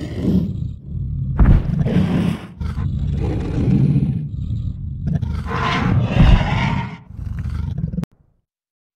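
Dinosaur sound effect from Google's AR 3D Ankylosaurus model: a run of deep, rumbling roars that cuts off suddenly about eight seconds in.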